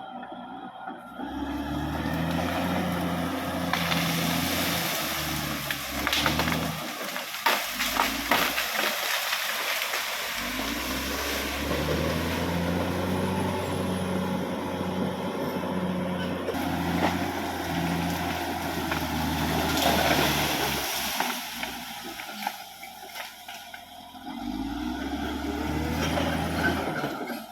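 Caterpillar D6R XL bulldozer's diesel engine working under changing load, with sharp cracks and knocks for a few seconds about four seconds in. Near the end the engine revs up with a rising pitch.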